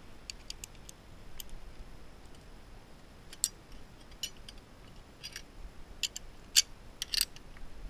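Metal carabiners and a zip-line pulley trolley clicking and clinking as they are clipped onto a harness and the steel cable: a scattered string of sharp metallic clicks, the two loudest near the end.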